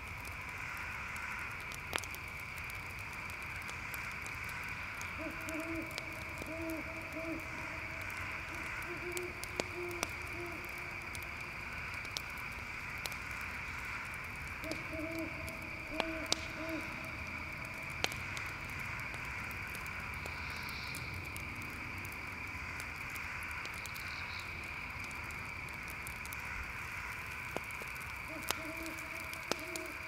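Night ambience: a steady, high insect chorus of crickets, with scattered sharp pops of a crackling campfire, and an owl hooting in short series of low notes four times.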